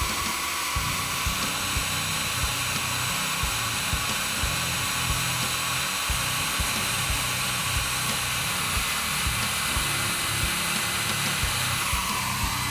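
Thermaltake computer power supply running: a steady fan-like rush with thin, steady high whistling tones, the whistle of a faulty supply. A regular low beat of background music runs underneath.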